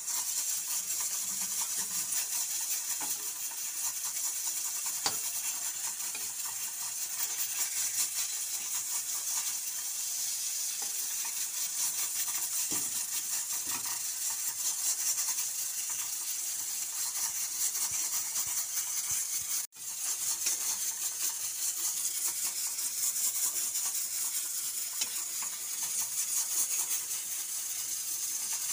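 Eggplant slices shallow-frying in oil in a steel kadhai: a steady hiss of sizzling, with a few clicks and scrapes of a metal spatula turning the slices. The sizzle breaks off for a moment about two-thirds through.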